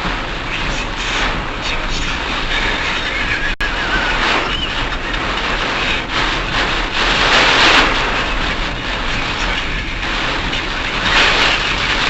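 Steady rushing road noise from a car driving through typhoon wind and rain, heard from a dashboard camera inside the cabin. The rush swells twice, about seven and eleven seconds in, and cuts out for an instant a little after three seconds.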